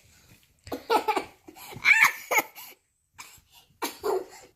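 Small child laughing in several short bursts, the loudest about two seconds in.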